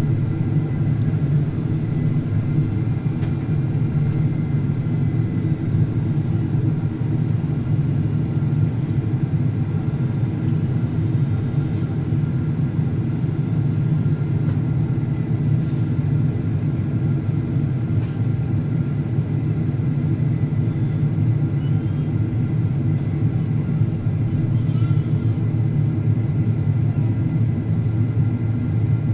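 Steady cabin noise of a Boeing 767-400ER airliner on approach: a continuous low rumble of engines and airflow, with faint steady high tones.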